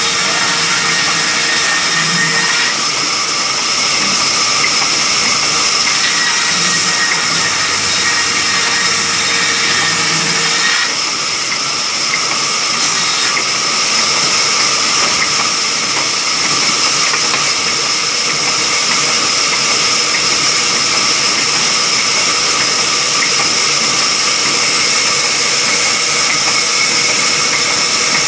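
Large belt-driven band saw running and ripping a log lengthwise into planks: a loud, steady hiss and whine of the blade through the wood. The sound dips briefly about eleven seconds in and then carries on.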